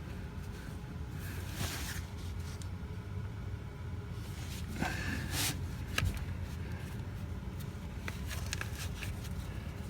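Scattered metal clicks and knocks of a wrench and hose fitting being worked by hand, over a steady low rumble.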